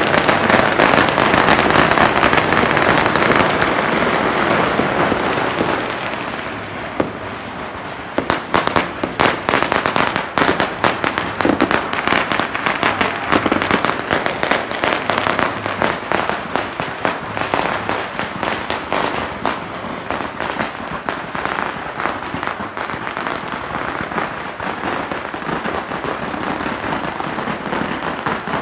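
Firecrackers and fireworks going off in a dense barrage: for the first few seconds a solid, continuous crackling din, then from about eight seconds in a rapid stream of separate sharp cracks and bangs.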